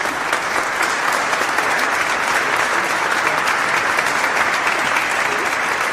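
Crowd applause: many hands clapping in a dense, steady patter.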